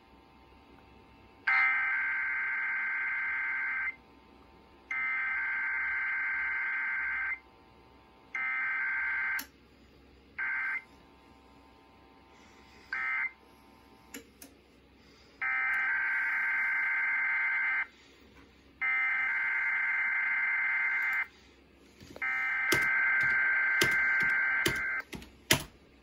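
Emergency Alert System SAME data tones for a required weekly test: a run of harsh, buzzing digital tone bursts, most about two seconds long with short gaps and a few brief ones in the middle. A few sharp clicks sound near the end.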